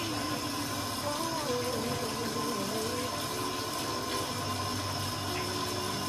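Water spraying steadily from a handheld shower wand onto hair and into a wash basin, an even hiss of running water.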